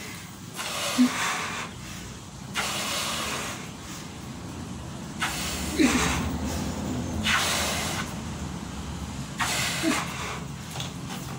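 Repeated hard breathing of two people blowing up latex balloons by mouth: a rushing breath about every two seconds as air is drawn in and forced into the balloons. No balloon bursts.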